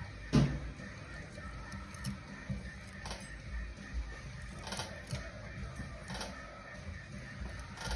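Thread tap turned by hand in a drilled hole, cutting a thread ready for a helicoil: short creaks and clicks from the tap and its wrench about every second as it is worked back and forth. A knock just under half a second in is the loudest sound.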